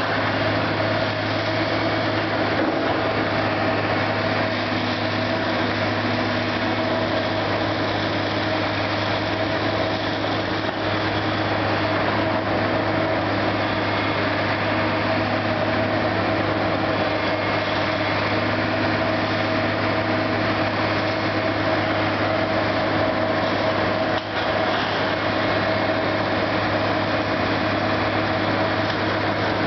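Kobelco long-reach excavator's diesel engine running steadily under working load during demolition, a constant low drone with a steady tone above it. A few faint knocks come through now and then.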